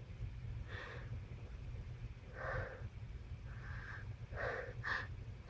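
Short nasal snorts and sniffs, about five in a few seconds, during a bout of sneezing, with a sharper burst at the very end as a sneeze begins.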